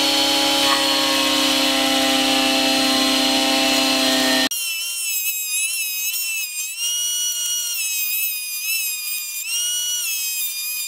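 Benchtop planer-jointer running as a board is fed over its cutterhead: a loud steady motor whine with cutting hiss. About four and a half seconds in the sound changes abruptly to a thinner, higher whine that wavers up and down in pitch.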